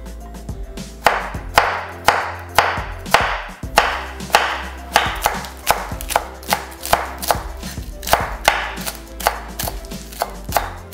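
Kitchen knife chopping vegetables on a wooden cutting board, slicing through stacked lettuce leaves. It is an even run of sharp chopping strokes, about two a second, starting about a second in.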